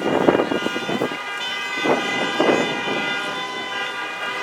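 Newly restored tower bells ringing: fresh strikes at the start and about two and two and a half seconds in, their many tones ringing on and overlapping.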